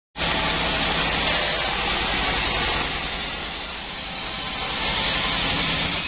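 Sawmill band saw running and cutting wood: a steady hissing rasp of the blade over the low hum of its drive. It eases a little around the middle and then picks up again.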